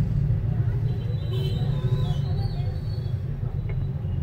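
Steady low rumble of road traffic, with faint voices in the background.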